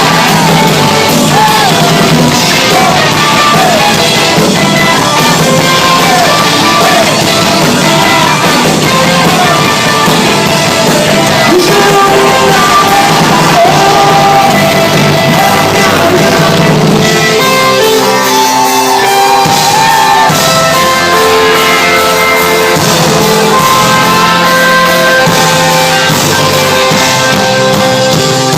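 Live rock band playing loud in a large hall, with guitars, drums and a singer. About seventeen seconds in the dense, full playing drops back to a sparser stretch of held guitar notes.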